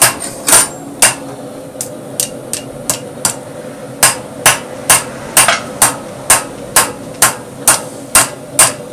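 A 2.5 lb rounding hammer strikes hot 1/2 inch round bar on an anvil, drawing the bar out flat. The sharp, ringing blows are light and uneven for the first few seconds, then settle into a steady beat of about two a second. A faint steady hum runs underneath.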